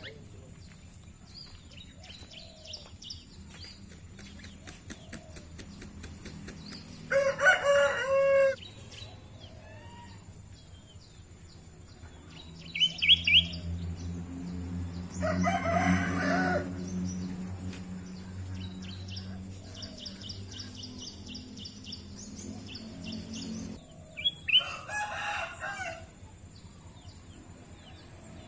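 A rooster crows loudly three times: about seven seconds in, midway, and near the end. Between the crows a small songbird chirps in quick repeated high notes, and a low steady hum runs through the middle stretch.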